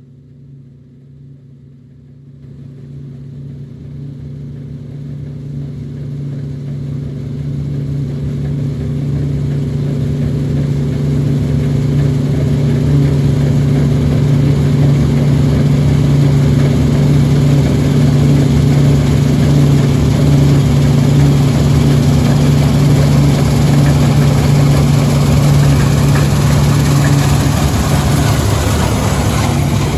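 A farm machine's engine running steadily at an even pitch. It grows louder over the first ten seconds or so, then holds level.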